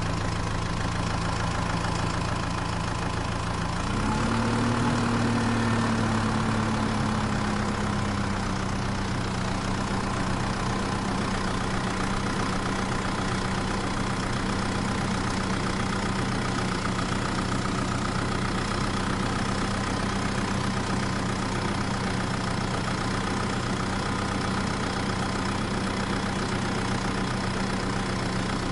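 Tractor engine running steadily. About four seconds in, the revs pick up, ease back a little, and then hold at a steady speed.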